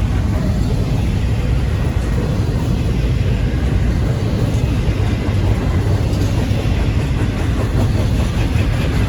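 Long Norfolk Southern intermodal freight train rolling past at a crawl: a steady low rumble of steel wheels on rail.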